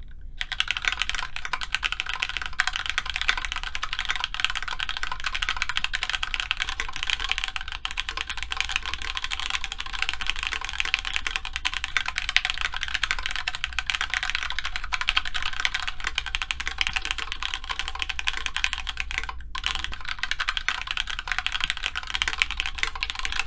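Steady fast typing on a Grid600 tray-mount mechanical keyboard in a plateless build with stock Gateron Yellow linear switches and GMK keycaps, center post installed and no dampening: it sounds like a regular tray-mount case, if a bit hollow. The keystrokes break off once, briefly, near the end.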